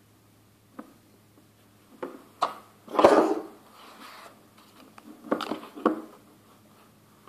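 Handling noise: short knocks, rubs and rustles as hands move a smartphone and its cardboard box on a tabletop. The loudest is a rustling scrape about three seconds in, with a second cluster of knocks and rubs between five and six seconds.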